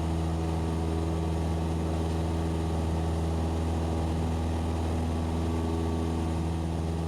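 Cessna 172SP's four-cylinder Lycoming engine and propeller droning steadily in flight, heard inside the cabin, with no change in pitch.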